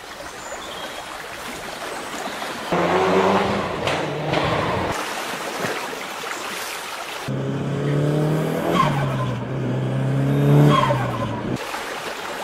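A car driving, with tyre noise and an engine note that sags and rises over several seconds.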